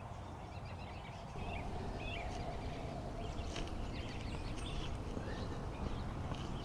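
Quiet outdoor ambience with faint, scattered bird chirps, and a single soft knock about three and a half seconds in as a digging tool is stepped into wet turf.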